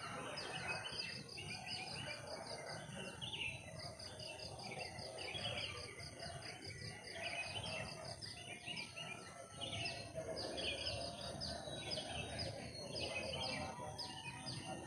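Several birds chirping and calling over and over in quick repeated notes, over a steady high insect drone: forest ambience.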